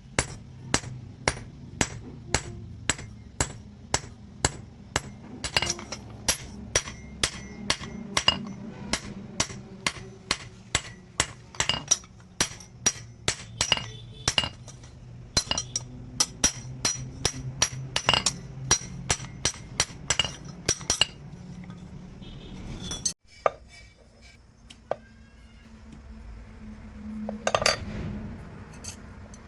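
Hand hammer forging steel from a truck leaf spring on an anvil, blows falling in a steady rhythm of about two to three a second with a ringing clink. The hammering stops a little after twenty seconds in, followed by a few faint clinks and a brief scraping sound near the end.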